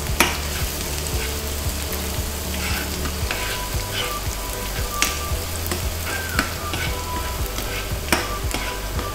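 Minced garlic and onion sizzling in hot oil in a nonstick frying pan, stirred with a metal spoon that clicks sharply against the pan a few times.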